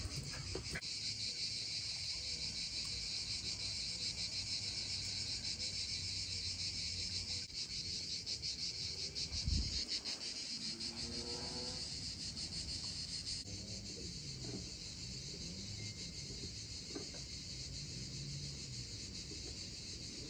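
Insects shrilling in a steady, high-pitched chorus with a fine rapid pulse, with a brief low thump about halfway through.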